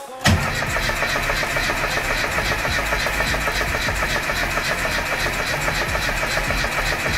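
Austin Mini's A-series four-cylinder engine being cranked over on the starter, turning steadily without catching. It won't fire because the little arm of the mechanical fuel pump has broken, so no fuel is being pumped.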